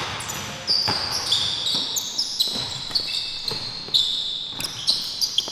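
Basketball bouncing on an indoor hardwood gym court, about ten sharp thuds, mixed with short high squeaks of basketball sneakers on the floor.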